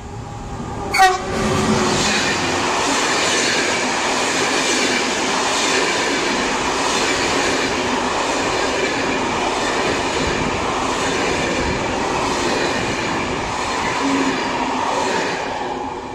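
Electric locomotive-hauled Intercités passenger train passing through the station: a brief horn blast about a second in, then the steady rumble of the coaches' wheels on the rails with evenly repeating clicks, fading near the end as the last coach goes by.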